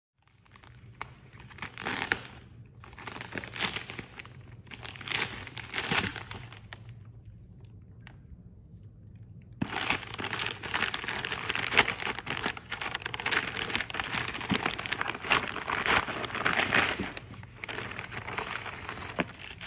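Paper packaging crinkling and rustling as it is handled and unwrapped, in uneven bursts with a short lull partway through, then busier, continuous crinkling for the second half.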